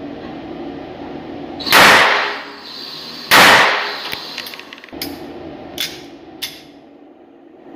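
Two shots from a small pistol about a second and a half apart, each echoing in an indoor shooting range, followed by three fainter sharp cracks.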